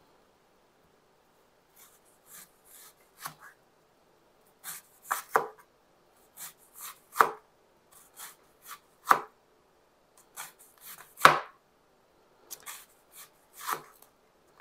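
Kitchen knife slicing a white onion on a plastic cutting board: irregular sharp taps of the blade meeting the board, starting about two seconds in, with the loudest cut about eleven seconds in.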